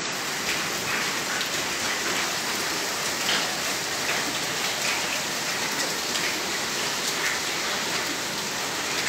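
Heavy hail pelting paving: a dense, steady clatter of countless small impacts, with scattered sharper hits standing out.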